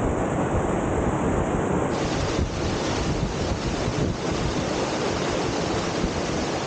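Waterfall: water pouring and splashing in a steady, loud rush.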